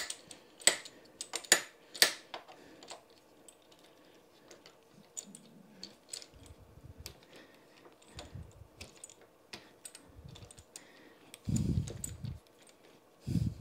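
Metal and plastic parts of a bicycle repair stand being handled and fitted: a few sharp clicks and taps in the first couple of seconds, then scattered light ticks and several dull low thumps.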